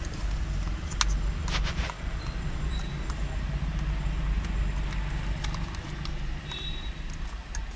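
Short plastic clicks and taps as the lock catch on a car's airbag clock spring is worked open by hand, over a steady low rumble.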